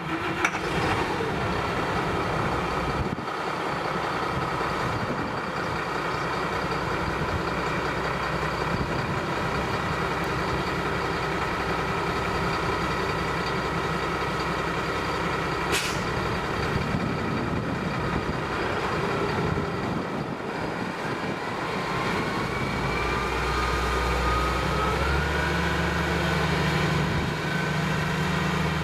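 New Holland skid-steer's diesel engine running steadily under work, with a single sharp click about halfway through. Its revs climb over a few seconds near the end.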